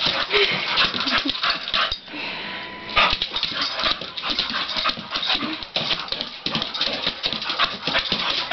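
Boxer dog scrambling after a laser dot. Its paws make many quick, irregular taps and scuffs on the floor.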